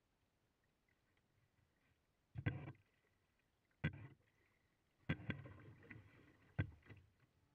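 Plastic kayak being paddled on calm sea water, heard close at the hull: five or so sudden knocks and splashes as water slaps the boat, with quiet between them and for the first two seconds.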